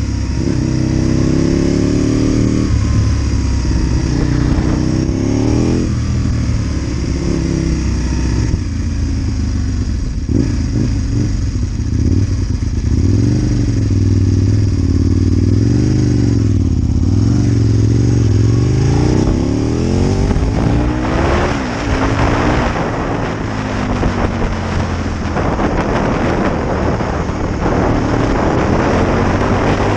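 Aprilia Tuono 1000 R's V-twin engine under way, revving up and dropping back again and again as the rider accelerates and shifts gears. In the second half a rushing wind noise on the microphone grows stronger alongside the engine.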